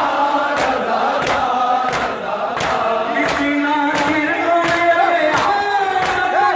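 A noha (Shia lament) chanted by men's voices, kept in time by the sharp, regular slaps of hands beating on chests (matam), about three slaps every two seconds.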